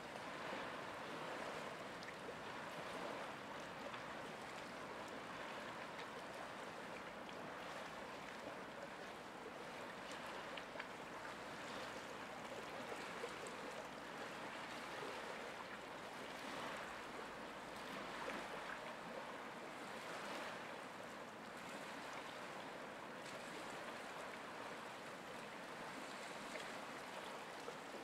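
Faint, steady wash of flowing river water, rising and falling gently now and then.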